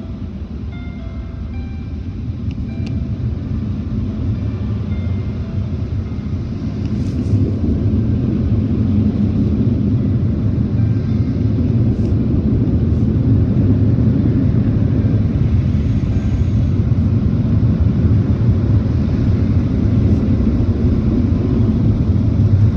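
Automatic car wash machinery heard from inside the car, muffled by the cabin: a steady low rumble that grows louder over the first several seconds and then holds.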